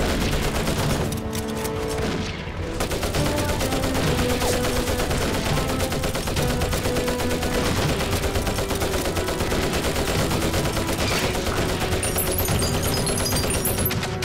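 Heavy, sustained battle gunfire: rapid machine-gun bursts mixed with rifle shots, dipping briefly about two seconds in.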